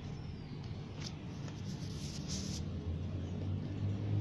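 Kittens biting and chewing young wheat grass sprouts, with a few short crisp crunching clicks about a second in and again around the middle. Under it runs a low rumble that grows louder towards the end.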